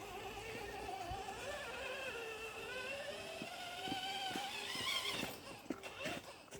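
Small electric motor of an RC car whining, its pitch wavering up and down and rising about five seconds in before dying away.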